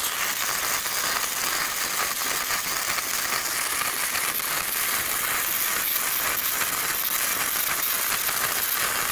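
Gasless flux-cored MIG welding arc from a Hanshin HST-200MIG welder, burning steadily as the wire feeds automatically. It makes a continuous dense crackle and throws a lot of spatter. The footage is fast-forwarded four times.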